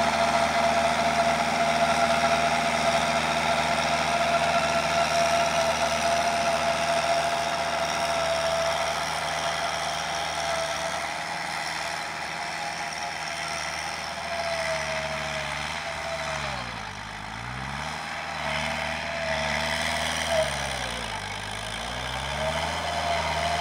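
Kubota tractor's diesel engine running under load while it drives a rear rotary tiller bed-former through soil, with a steady whine above the engine note. Later on, the engine speed drops and picks back up twice.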